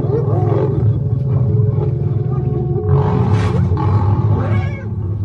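Lions growling and snarling in a heavy, continuous rumble while facing spotted hyenas, with wavering, gliding hyena calls above it and a louder outburst a little past halfway.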